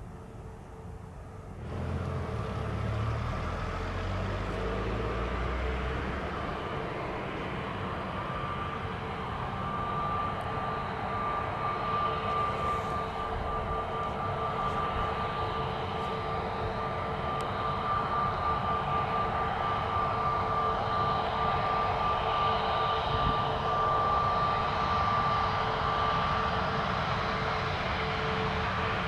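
Jet engines of an SAS Airbus A320neo-family airliner taxiing at low thrust: a steady whine with two held tones over a rushing hiss. It starts about two seconds in, with a low rumble at first, and slowly grows louder.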